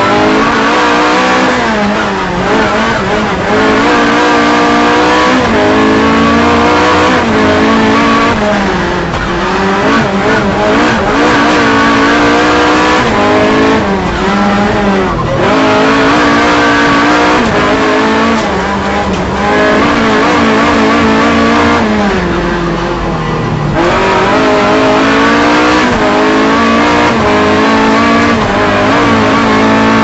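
Rear-wheel-drive rally car engine heard from inside the cabin, revving hard and climbing through the gears, with brief lifts off the throttle for corners about halfway through and again about three-quarters of the way in.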